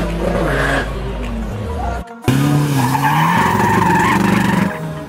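Tuned VW Polo TDI PD front-wheel-drive diesel drag car revving with its front tyres spinning and squealing in a burnout. A sharp cut comes about two seconds in, and the sound drops off near the end.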